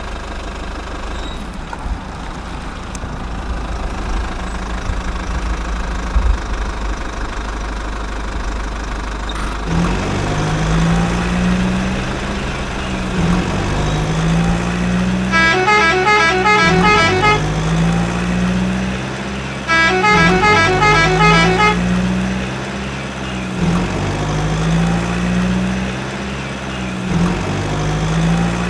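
A telolet truck horn plays its quick multi-tone tune twice, about fifteen and twenty seconds in, and starts again at the end. Under it, from about ten seconds in, is a low engine sound that rises and falls in a cycle about every two seconds; before that there is only a steady hum.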